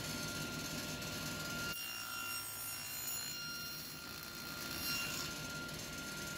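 Faint steady background hum with a thin steady high tone. The hum drops away abruptly about two seconds in and returns about three seconds later.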